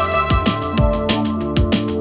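Background music with electronic drums and a steady beat, about two beats a second.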